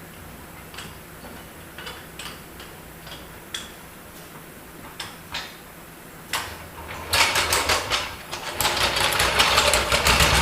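Scattered clicks of tools on metal, then a fast mechanical rattle from about seven seconds in, as the wheel's lug nuts are run on.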